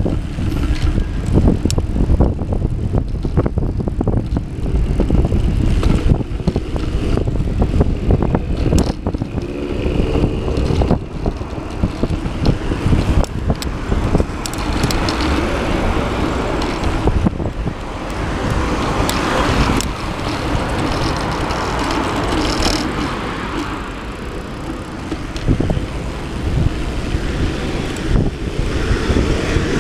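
Bicycle ride heard from a handlebar-mounted camera: a steady low rumble of wind and ride vibration, with frequent knocks and rattles as the bike goes over bumps in the path. Road traffic passes alongside, loudest around the middle while crossing a road.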